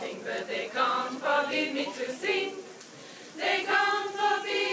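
A choir singing a cappella in short phrases. It drops away about two and a half seconds in, then comes back louder with a held chord near the end.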